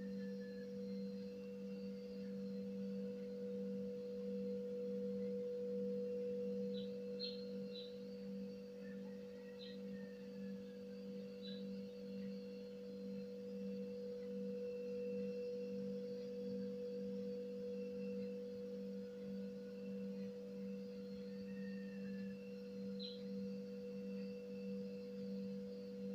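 A steady low machine hum holding two pitches throughout, with a few faint short high chirps scattered through it.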